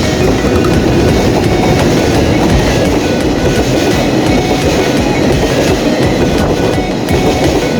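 Freight train passing close by: a steady, loud rumble and clatter of its wheels on the rails.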